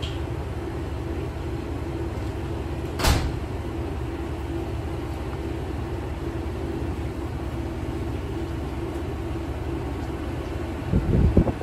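Kanto Railway Joso Line diesel railcar's engine running steadily with a low rumble. There is one sharp click about three seconds in and a few loud low thumps near the end.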